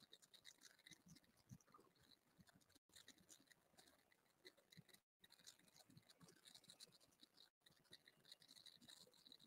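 Near silence: faint room tone with a few faint, scattered ticks.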